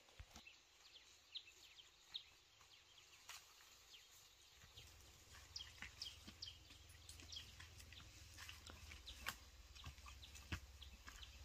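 Faint footsteps and rustling on dirt and through grass and leaf litter, heard as scattered soft clicks, with a few brief high chirps. A low steady rumble comes in about halfway through.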